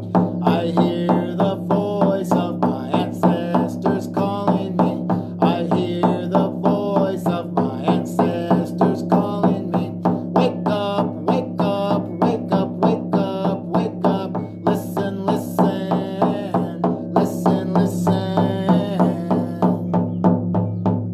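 A hand drum beaten in a steady rhythm, about three beats a second, while a man sings a chant over a steady low drone.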